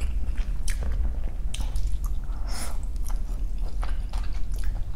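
Close-miked chewing of chicken pad thai: irregular soft, wet mouth smacks and clicks as the noodles and chicken are chewed.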